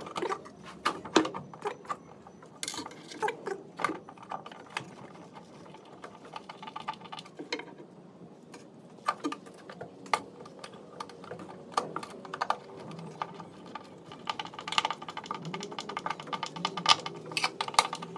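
Hand screwdriver working the screws of a steel concealed cabinet hinge: irregular small metal clicks, scrapes and taps, coming thicker near the end.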